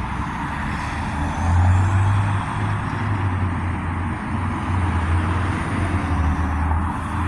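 Motor vehicle engine running nearby: a steady low rumble with a constant hiss, swelling a little more than a second in.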